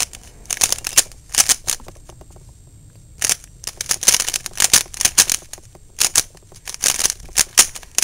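A plastic 3x3 Rubik's Cube having its layers turned quickly by hand: rapid clicks and clacks in irregular clusters, with a pause of about a second early on.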